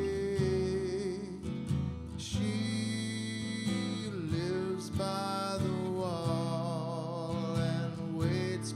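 Acoustic guitar played in a slow, steady pattern, with a man's voice holding long, drawn-out sung notes over it.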